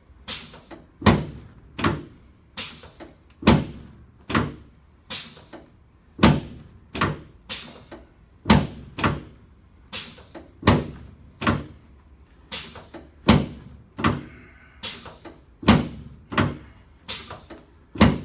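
A long series of sharp knocks during a chiropractic adjustment of the sacroiliac (SI) joints on a patient lying face down, one or two a second at uneven spacing.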